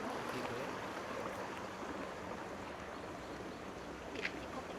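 Steady rush of running water, an even hiss-like flow, with one brief faint tick about four seconds in.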